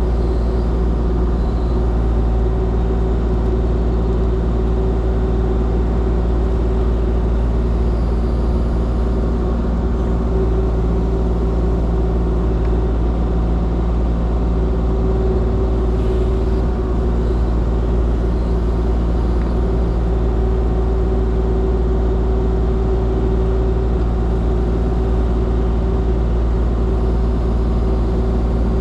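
Kubota KX040 mini excavator's diesel engine running steadily at working speed while digging, a constant engine drone with no breaks or sharp knocks.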